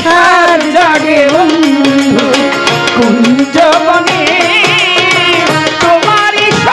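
Live Bengali baul folk music: a violin melody with vibrato over a steady hand-drum beat, with a man's voice singing along.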